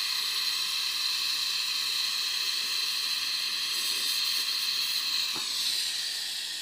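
Gas brazing torch flame hissing steadily as it heats the copper discharge-pipe joint inside an opened refrigerator compressor, to unsolder the pipe. The hiss softens a little near the end.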